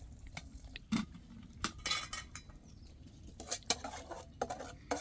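Irregular light clicks and knocks, about half a dozen over a few seconds, like small hard objects being handled.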